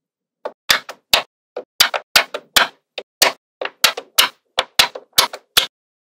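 Small magnetic metal balls clicking as strips of them are snapped together one against another: sharp, irregular clicks, some in quick pairs, about four a second.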